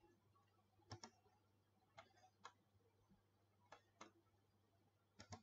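Faint, sharp computer mouse clicks, about a second apart, picking points for a line in CAD software, over near silence.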